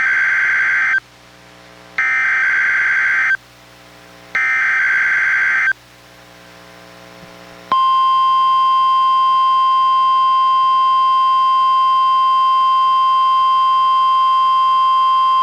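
NOAA Weather Radio test signal played through a Reecom R-1630 weather radio. First come three short bursts of SAME digital header data, a harsh warble, about two seconds apart. About halfway through, the steady 1050 Hz warning alarm tone starts and holds.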